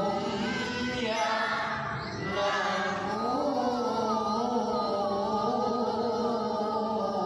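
Quran recitation in the melodic tilawah style: a voice chanting long, ornamented phrases with a wavering held pitch, with a short break about two seconds in before a long sustained line.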